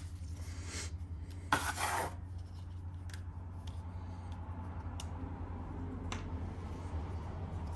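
Handling noises from preparing two-part epoxy at a workbench: a short scraping rustle about one and a half seconds in, then a few light clicks, over a steady low hum.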